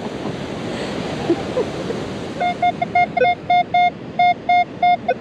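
Wind and surf noise, then from about halfway in the Minelab Equinox 800 metal detector repeatedly gives a short high beep, about three to four a second, as its coil is swept over a buried target. The reading is in the high 20s, the signal of a coin, a quarter.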